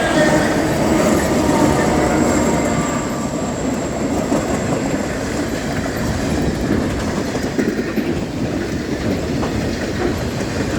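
Diesel-hauled freight train rolling past at close range: a loud, steady rush of wheels on rail with a rapid clickety-clack as the wagons' wheels cross the track joints.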